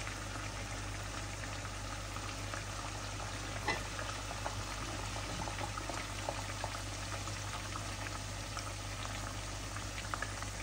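Hot oil sizzling and bubbling steadily in a frying pan as rice-flour batter handesh deep-fry, with scattered small crackles.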